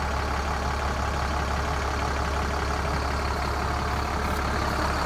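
Fire engine's engine running steadily close by, a low even rumble with no siren sounding.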